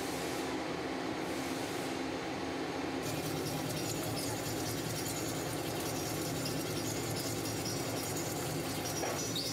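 Heavy CNC crankshaft milling machine rough-milling a steel crankshaft forging with a large disc cutter set with carbide inserts: a steady, even cutting noise with a low hum and thin high whines, turning brighter about three seconds in.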